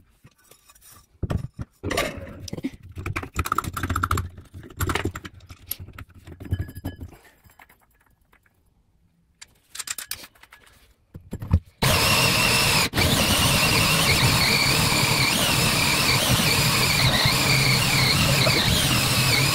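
Handling knocks and rustles, then, about two-thirds of the way in, a cordless drill starts driving a hole saw into hard laminate flooring. It runs on with a steady hum under a high, wavering whine from the cutting.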